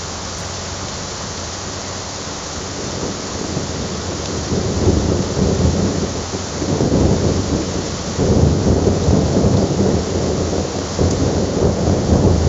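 AI-generated thunderstorm sound effect: steady rain hiss with thunder rumbling in underneath, swelling up about four times and growing louder after the first few seconds.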